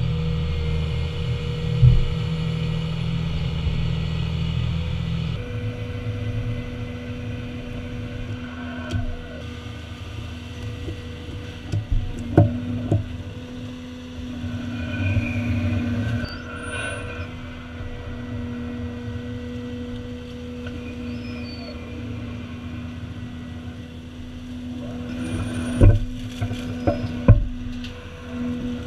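Watermaster amphibious dredge running steadily while working, with a low rumble and a steady mechanical tone that shifts about five seconds in. Several sharp knocks stand out, the loudest near the start and near the end.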